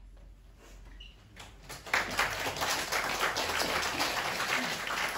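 Audience applause after a piano performance ends: a brief hush, then clapping starts faintly about a second and a half in and swells to full, steady applause by about two seconds in.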